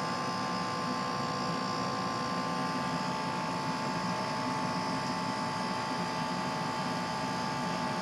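A.O. Smith hybrid heat pump water heater running with its heat pump on: the fan and compressor give a steady hum with a steady high tone over it.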